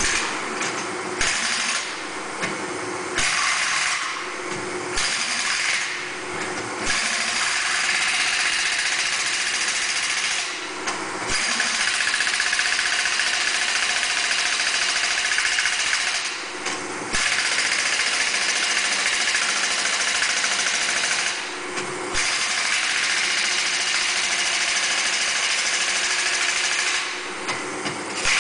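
BigMaster truck tire changer running its motor and hydraulic pump in long spells as the operator works the controls, cutting out briefly between moves about eight times, with a lower machine hum left in the short gaps.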